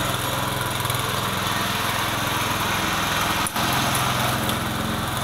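Varsha 5 HP petrol engine of a gear-model power weeder running steadily while the machine drives in second gear, with a very brief dip in the sound about three and a half seconds in.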